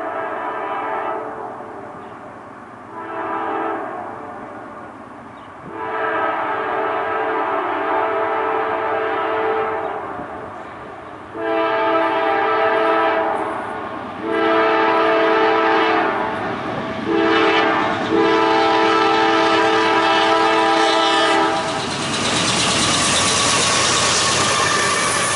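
Nathan K5LA five-chime air horn on a GE Dash 9 locomotive sounding repeated blasts, the last four in the long-long-short-long grade-crossing pattern. Near the end the locomotives arrive close, and a loud rush of engine and wheel noise takes over.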